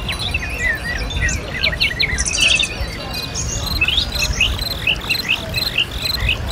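Bird-like electronic chirps and twittering glides from the cloudlets' small speakers, turning about halfway through into a string of evenly repeated chirps, about three a second, over a low background rumble.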